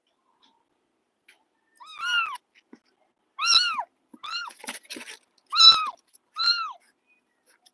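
Kittens meowing: about five short, high mews that start about two seconds in, each rising then falling in pitch, with a few soft scuffling clicks between them.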